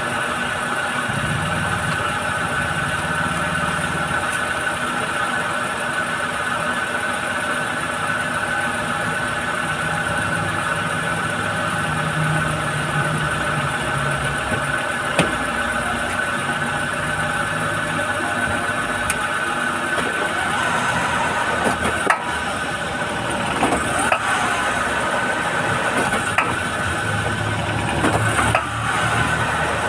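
Honda Fit engine running steadily, with several sharp clunks, most of them in the second half: the clunk that comes when the car is shifted into drive or reverse, a fault the owner has not yet traced.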